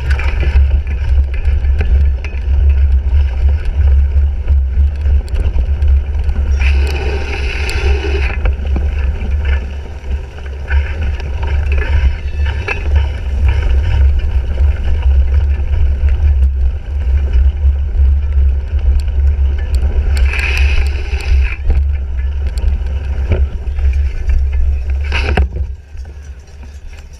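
Heavy wind rumble and rattling on a bike-mounted GoPro Hero 3 while a cyclocross bike is raced over the course, with two brief louder stretches of hissing noise about seven and twenty seconds in and a sharp knock near the end.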